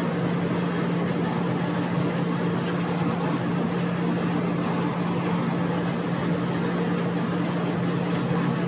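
A steady hum over a constant hiss, unchanging throughout, like a machine running in the room.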